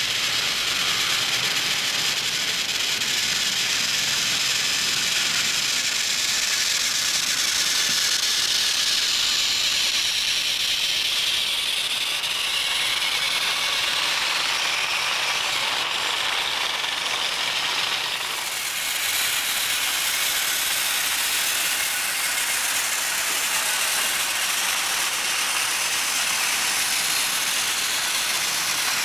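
Motorised plastic toy trains running together on plastic track: the small gear motors whir and the wheels clatter steadily, with a brief dip in level about two-thirds of the way in.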